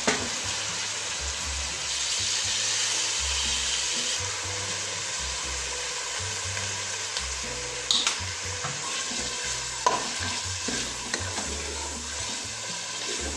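Chopped capsicum and onion sizzling in hot oil in a metal pot while being stirred with a wooden spoon: a steady frying hiss, with a couple of sharp knocks about eight and ten seconds in.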